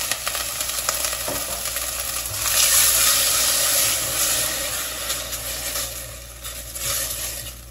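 Minced onion and garlic sizzling in hot oil in a stainless steel pot, stirred with a wooden spatula, with a few light clicks of the spatula. The sizzle swells a few seconds in and dies down near the end.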